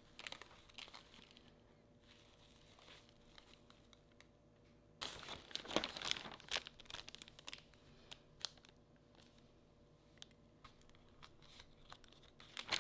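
Clear plastic packaging crinkling and being torn open by hand. The loudest part is a dense burst of tearing and rustling about five to seven seconds in, with lighter crinkles and small clicks around it.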